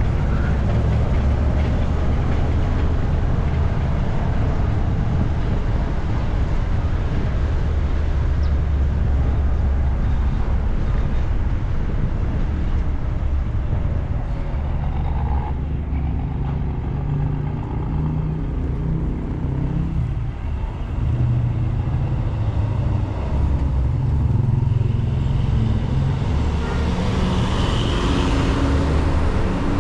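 Micro (Bolivian public-transport bus) engine running with road noise while driving, the engine note rising about halfway through, and a louder hiss building near the end.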